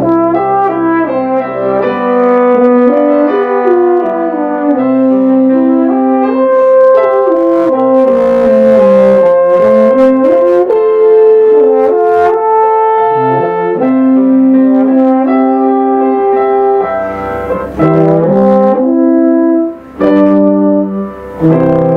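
A euphonium and a trumpet play a slow melody in harmony, with long-held notes, over piano accompaniment. There is a short break in the playing about two seconds before the end.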